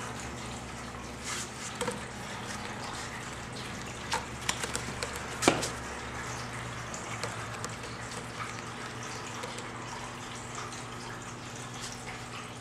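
Singapura kitten clawing and batting at a sisal-rope scratching post: scattered light taps and scratches, the loudest about five and a half seconds in, over a steady low hum.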